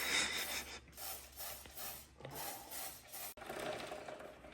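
Aerosol chain lube sprayed onto a motorcycle chain in about four short hissing bursts.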